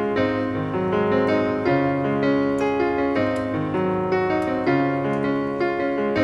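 Background piano music: a melody of single notes over held chords, moving steadily.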